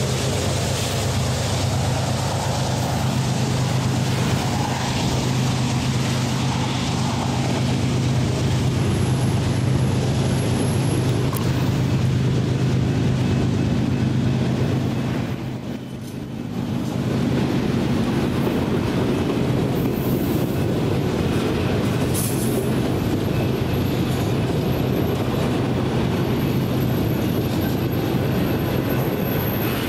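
BNSF freight train of enclosed autorack cars rolling past: a steady rumble of steel wheels on rail. It dips briefly about halfway through before coming back up.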